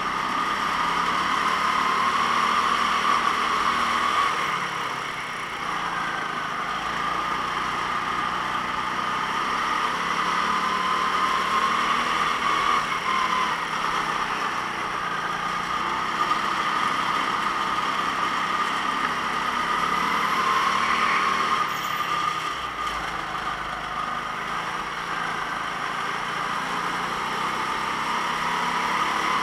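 Go-kart engine running hard, its pitch rising and falling as the kart accelerates and slows, with short drops in level a few times.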